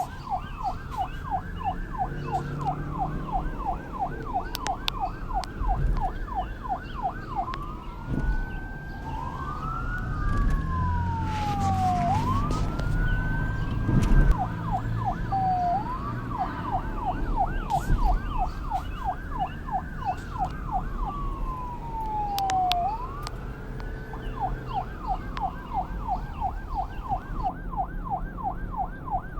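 Police car electronic sirens sounding together: one in a rapid yelp of about four sweeps a second, overlaid by a slower wail that rises and falls about every two seconds. A low rumble runs underneath.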